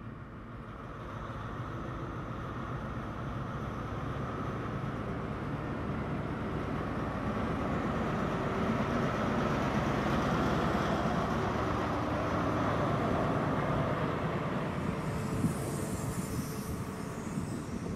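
Class 43 HST power car's diesel engine pulling a train away, the sound building over the first several seconds as it accelerates past and then holding steady as the train rolls on along the rails.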